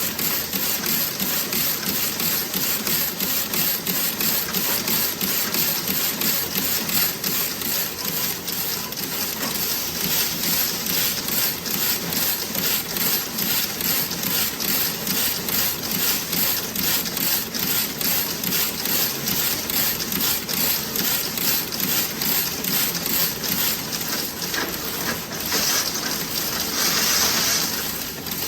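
Toe-sock knitting machine running: a fast, even mechanical clatter over a steady hiss. A louder hiss rises for about two seconds near the end.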